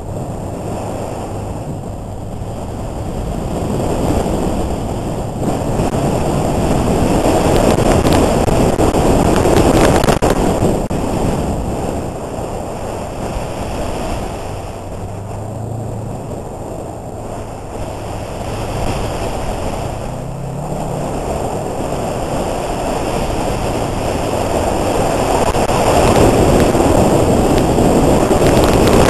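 Wind rushing over the camera microphone as a Subaru Forester XT is driven hard, swelling and easing with the car's speed. The car's turbocharged flat-four engine runs faintly underneath, its pitch climbing once about two-thirds of the way through.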